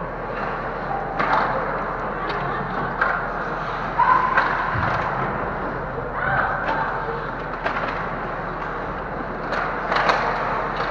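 Ice hockey play close to the goal: skates scraping and cutting on the ice, with sharp knocks of sticks and puck, the loudest about four seconds in and again near the end.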